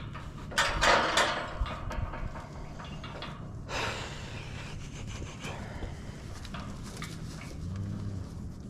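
A bull blowing hard through its nose: a loud breathy snort about half a second in and a shorter one near four seconds, over a low steady hum.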